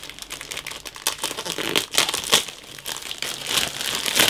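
Clear plastic bag crinkling and rustling in irregular crackles as a large plastic model-kit sprue is worked out of it by hand.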